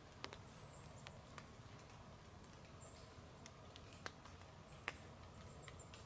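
Near silence: faint outdoor ambience with a few soft, sharp clicks spread through it and several brief, faint high-pitched chirps.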